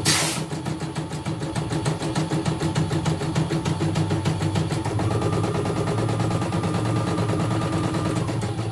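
CNY E900 computerized embroidery machine stitching a design: the needle mechanism runs in a fast, even rhythm while the hoop carriage moves. A brief burst of noise at the very start, and a higher whine joins about five seconds in, dropping away shortly before the end.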